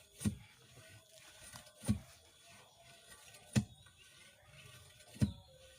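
Four dull thuds at a steady beat, about one every second and a half: a hand-worked well-drilling pipe being driven down into the borehole.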